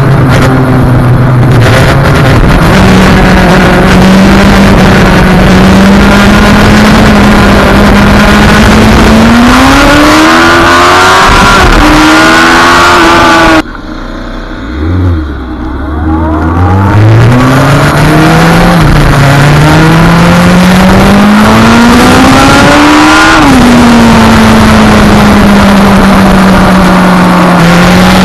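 Yamaha FZ1 motorcycle's inline-four engine running under way over loud wind rush. Its pitch climbs under acceleration, then about 14 seconds in the sound cuts suddenly to a quieter stretch. The engine then pulls steadily higher, drops back near 23 seconds and holds a steady cruising note.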